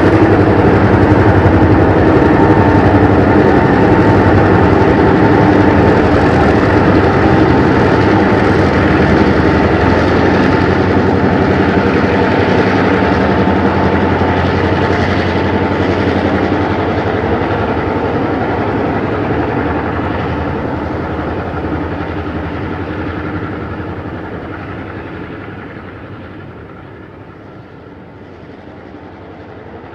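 Alco-designed 48 and 49 class diesel locomotives running past under load, their engines loud and steady. The sound then fades away over several seconds as the towed, unpowered double-deck electric train rolls by on the rails.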